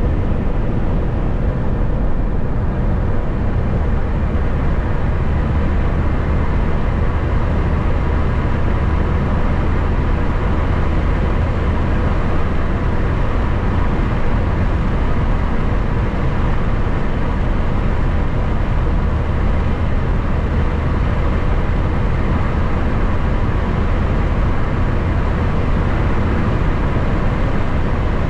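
Steady road and engine noise of a car cruising at highway speed, heard from inside the cabin as a constant low rumble with no changes.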